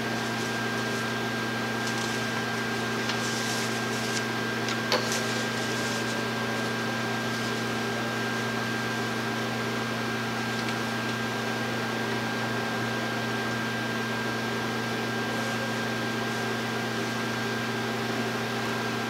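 Steady machine hum with a faint high whine over an even hiss, unchanging throughout; a faint soft knock about five seconds in.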